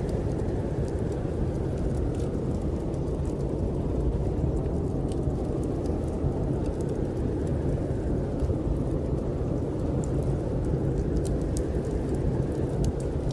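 Steady low rumble of snowstorm wind, with scattered faint crackles from a wood fire burning in a fireplace.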